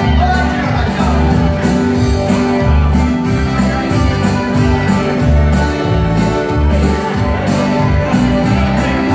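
Live country dance music played through PA speakers: a bouncy bass line, a steady drum beat and guitar, in a stretch without clear vocals.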